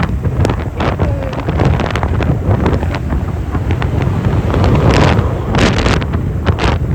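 Heavy wind buffeting the microphone on a moving motorcycle, over a steady low rumble from the ride.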